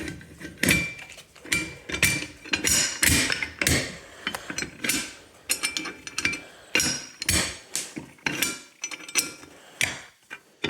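Irregular metallic clicks and clanks from a fire alarm pull station being worked with a nut and bolt in place of its broken reset key, some strikes leaving a brief high ring.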